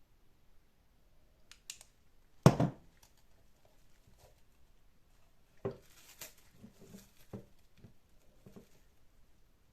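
Small objects being handled and set down on a work surface: a few light clicks, one loud knock about two and a half seconds in, then a string of small taps and rustling toward the end.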